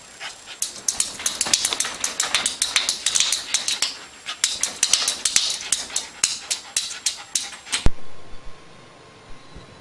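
Rapid, irregular series of sharp taps for about seven seconds, which then stops abruptly at a cut and gives way to a faint hum.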